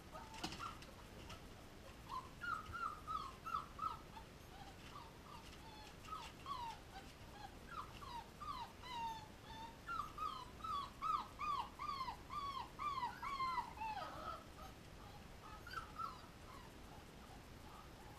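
Young puppies whimpering and squeaking: rapid runs of short, high calls that each drop in pitch, coming in bursts, with the longest run through the middle. A short click right at the start.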